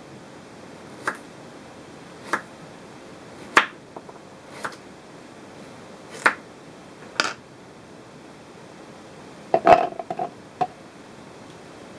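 Kitchen knife chopping through a carrot onto a wooden cutting board: about six sharp knocks, roughly one a second. About ten seconds in, carrot chunks are dropped into a plastic NutriBullet blender cup, a quick cluster of knocks and clatter.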